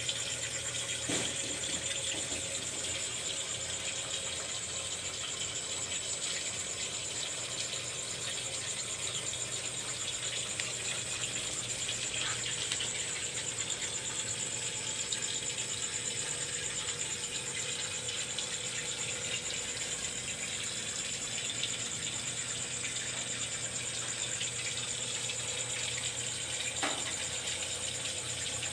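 Steady aquarium aeration: air bubbling from an airstone over a constant hum and a high-pitched whine from the tank's pump. A light knock comes about a second in and another near the end.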